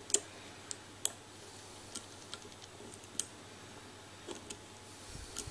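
Small sharp metallic clicks at uneven intervals, about ten of them, from lock picks working the pins of a challenge lock.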